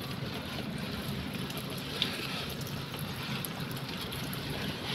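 Water showering from a watering can's rose onto broad plumeria leaves, a steady spray, with a small click about two seconds in.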